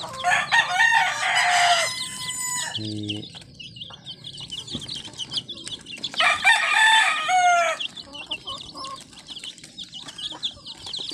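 A box of White Leghorn chicks peeping without pause in high, quick, falling chirps. A rooster crows twice over them, once at the start and again about six seconds in, each crow lasting nearly two seconds.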